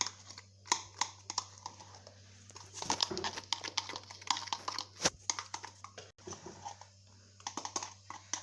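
A spoon stirring a thick cream mixed with alum powder in a bowl, giving irregular clicks and scrapes against the bowl.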